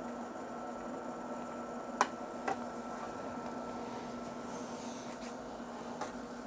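Steady electrical hum and hiss from bench test gear, broken by sharp clicks: a loud one about two seconds in, a softer one half a second later, and another near the end.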